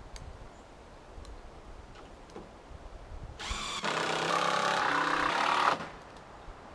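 A motor runs loudly for about two seconds, starting a little after three seconds in and cutting off near the end, with a steady pitched hum.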